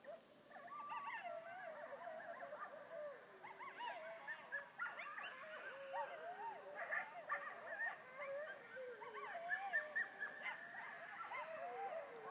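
A pack of coyotes howling and yelping together, many wavering voices overlapping at once, with short high yips growing thicker after a few seconds.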